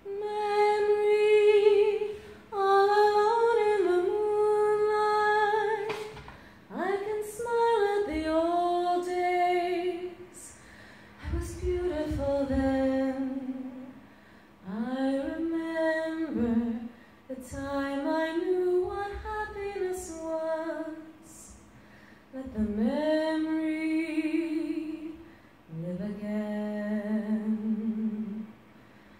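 A woman singing solo and unaccompanied into a microphone, long held notes in phrase after phrase with short pauses between.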